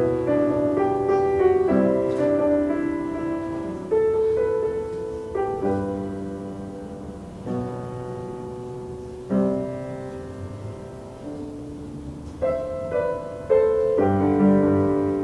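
Solo grand piano played slowly: quicker notes in the first couple of seconds, then chords struck every second or two, each left ringing and fading.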